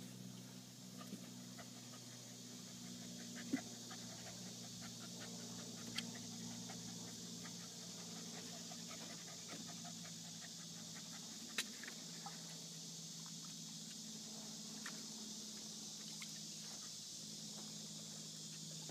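A Shiba Inu panting in 98° heat, with a few sharp clicks now and then over a steady low hum.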